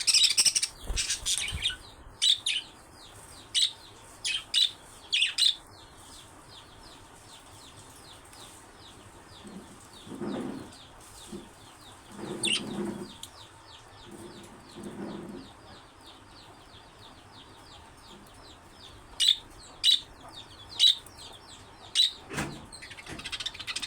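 Budgerigars chirping: loud, sharp chirps at the start and again near the end, with a fast, even twittering chatter in between. A few lower, muffled sounds come in the middle.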